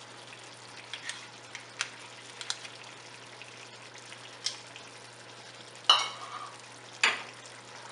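Mutton pieces frying in cooking oil in a nonstick pan with a steady sizzle as yogurt is poured over them. A few light clicks, and two sharper knocks about six seconds in and again a second later.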